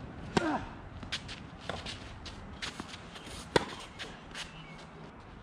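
Tennis ball struck by rackets during a point: a serve about half a second in with a brief ring from the strings, then a run of sharp hits and bounces, the loudest about three and a half seconds in.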